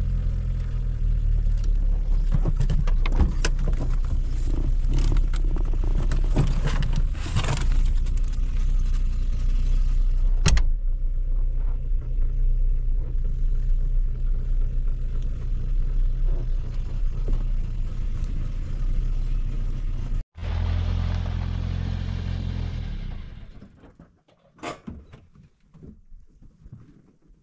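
Peugeot 405 car's engine and road noise heard inside the cabin while driving on a rough dirt road, a steady low rumble with scattered knocks and rattles from bumps. It breaks off briefly about twenty seconds in, returns, then fades out about three seconds later, leaving a few faint knocks.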